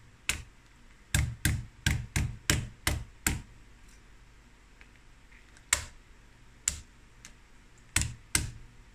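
A metal meat mallet knocks on boiled crab legs against a countertop, cracking their shells. About nine quick, sharp knocks come at roughly three a second, then there is a pause, then four more knocks spaced out over the second half.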